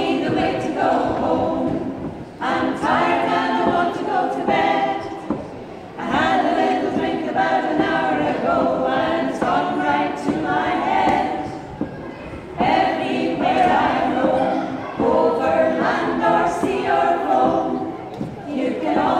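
Small mixed choir of women and a man singing a cappella, in sung phrases broken by brief pauses.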